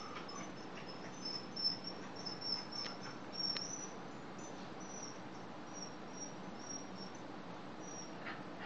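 A steady series of short, high-pitched chirps repeating every half second or so, with a few faint clicks about three seconds in.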